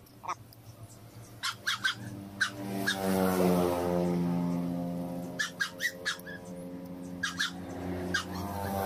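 A dog howling in long, drawn-out notes that bend in pitch, with several short sharp clicks in between.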